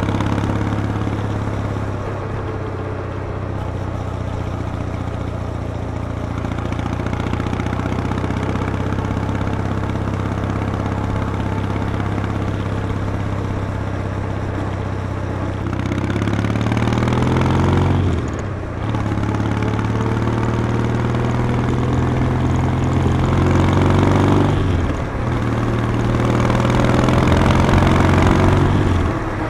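Kawasaki W800's air-cooled 773 cc parallel twin and exhaust, heard from the rider's seat while riding. It holds a steady note, then from about halfway the revs climb, break off sharply for gear changes twice, climb again, and break off once more near the end.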